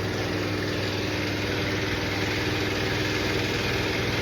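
A motor-driven machine running steadily in the background: an even mechanical hum with a low drone and a faint steady tone.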